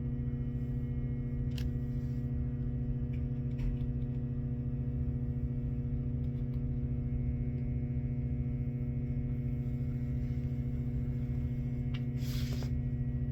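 Steady low electrical hum throughout, with a few faint clicks and a short rustle near the end from handling a ratcheting PEX crimp tool and fitting.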